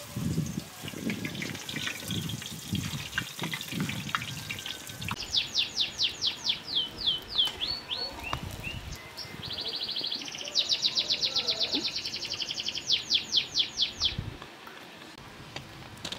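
A small songbird singing rapid trills of short, high, downward-sliding whistles, several a second, starting about five seconds in and stopping about fourteen seconds in. Beneath it is a faint steady hiss of flatbread frying in a pan of hot oil.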